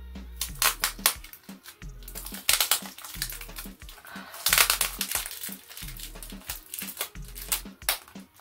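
Plastic wrapping around a potted plant's clear cup crinkling as it is handled, in short bursts, loudest about two and a half and four and a half seconds in. Background music with a steady bass beat runs underneath.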